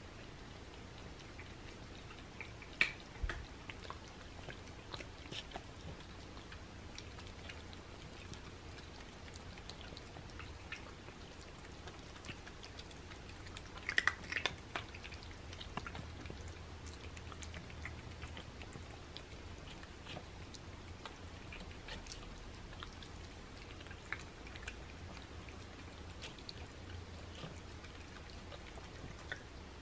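Cats eating soft homemade ground-meat food from paper plates: faint, irregular wet chewing clicks, with a brief louder cluster about halfway through.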